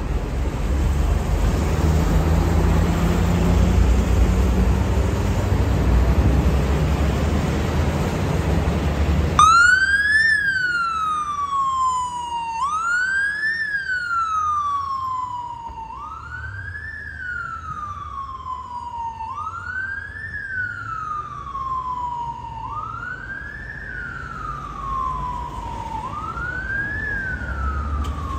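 Loud rumbling road and engine noise for about the first nine seconds. It stops abruptly as a paramedic motorcycle's electronic siren starts up, a wail that rises quickly and falls slowly, repeating about every three seconds and fading slightly as the motorcycle moves off.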